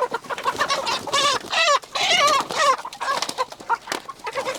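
Young Bresse chickens squawking in alarm as they are caught and pushed into a crate, a rapid run of wavering squawks that is loudest about a second in.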